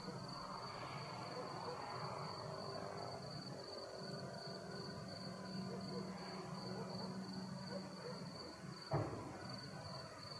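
Crickets chirring steadily in the night air, with faint distant voices. A single dull thump about nine seconds in is the loudest sound.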